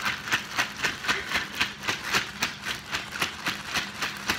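Ice cubes and salt rattling inside a plastic zipper bag shaken hard by hand, in a fast, even rhythm of nearly four shakes a second. This is ice cream being made in a bag: the salted ice is shaken around a sealed inner bag of cream mix to freeze it.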